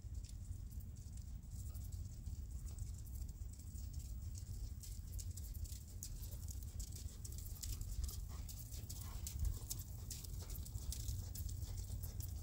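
Horse walking on sand footing: soft hoofbeats and scattered light clicks, which become more frequent about halfway through, over a steady low rumble.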